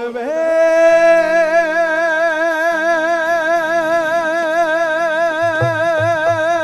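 A male folk singer sliding up into one long held note, sung with even vibrato, over the band's accompaniment, with low drum hits in the second half.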